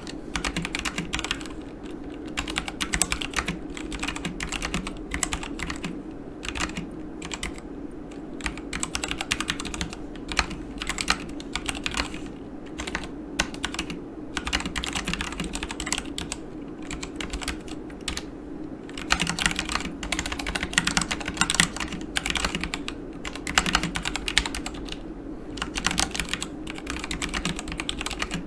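Continuous typing on a Yunzii KC84 mechanical keyboard with Gateron Black linear switches and PBT keycaps: rapid runs of key clacks with a couple of short pauses.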